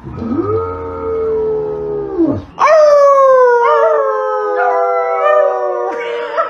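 A golden retriever howls one long held note that drops off after about two seconds. After a short break, several voices, people and a small dog, howl together in one long, slowly falling howl.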